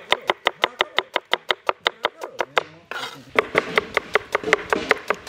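Kitchen knife slicing red onion on a wooden chopping board: quick, even knocks of the blade on the board, about seven a second. After a short pause about three seconds in, the chopping resumes less evenly.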